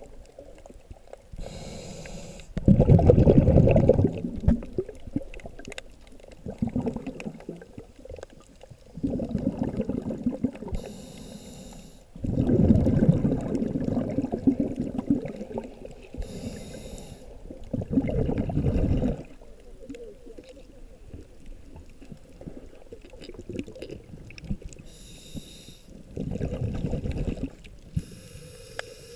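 Scuba diver breathing through a regulator underwater: a hissing inhale followed by a louder rumble of exhaled bubbles, repeated over several breaths.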